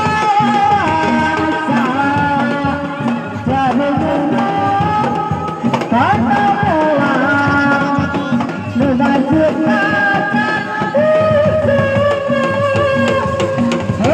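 Lively Sundanese folk dance music: hand drums keep a steady rhythm under a held, wavering melody line that slides between notes.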